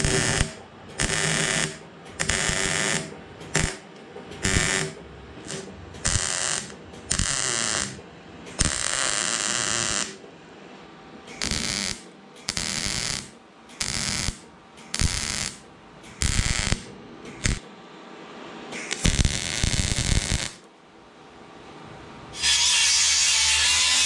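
MIG welder plug-welding old light holes shut in a steel flatbed side, with crackling arc noise in a series of short bursts separated by brief pauses. Near the end an angle grinder with a flap disc starts up and runs steadily with a whine, grinding the plug welds flush.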